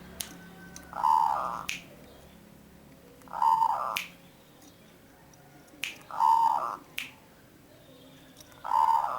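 Zebra dove (perkutut) cooing: four short phrases about two and a half seconds apart, with sharp clicks in between.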